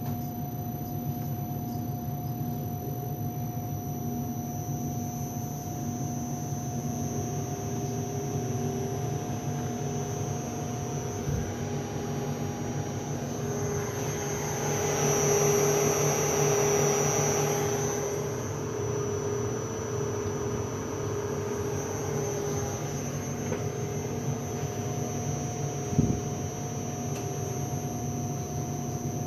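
Electric motor run from a variable-frequency drive on test: a steady hum with high-pitched whines, swelling louder for about four seconds near the middle, with a couple of single clicks.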